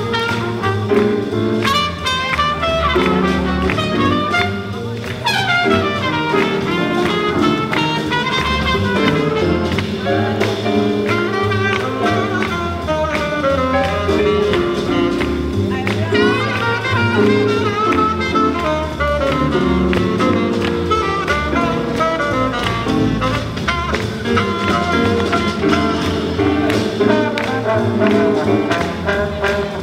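Live swing jazz band playing for dancers: trumpet, trombone and saxophones over upright bass and drums with a steady beat. A horn makes a long downward pitch slide about five seconds in.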